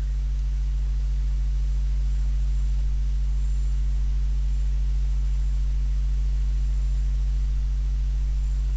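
Steady electrical mains hum, a low drone with its overtones, over a faint hiss: the background noise of the recording microphone, with nothing else to be heard.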